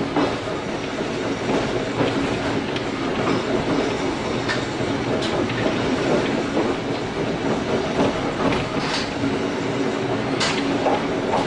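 Tobu 5700 series electric train with nose-suspended (tsurikake) traction motors running, heard from the cab: a steady motor and gear hum over the running rumble, with the wheels clacking over rail joints and pointwork. A couple of brief high screeches come near the end.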